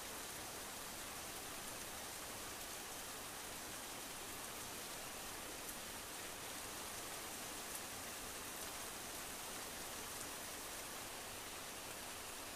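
Steady rain falling, an even hiss with a few sharper drop ticks now and then.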